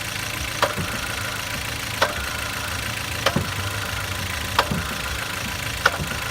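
2012 Kia Sportage idling in neutral with a sharp knock from the clutch and gearbox each time the clutch pedal is pressed in or released, five knocks about one and a third seconds apart over the steady engine hum. The knock occurs only with the engine running, a clutch or gearbox fault with the release bearing among the suspects.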